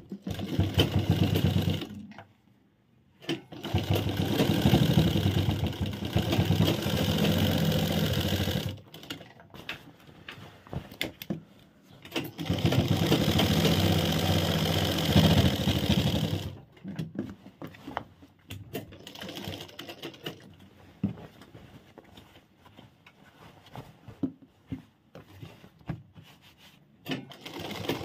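Sewing machine stitching a trouser fly in three runs of a few seconds each with short pauses between them. In the last third it is quiet apart from scattered clicks and fabric handling.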